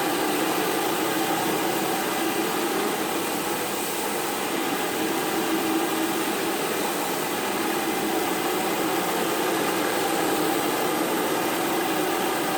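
Electric pressure washer running and spraying: a steady hum under an even hiss.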